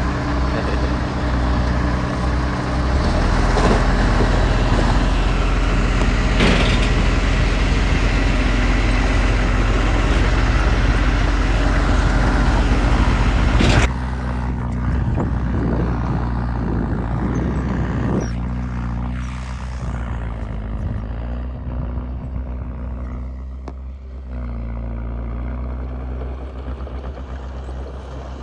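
Diesel engine of heavy earthmoving machinery running steadily, with a few sharp metal clanks in the first half. About halfway through the sound changes abruptly, becoming quieter and duller, with the engine still running.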